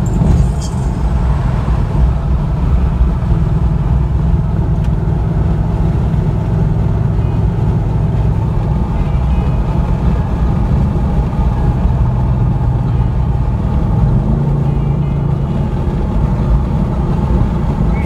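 Car engine and tyre noise heard from inside a moving car's cabin, a steady low drone.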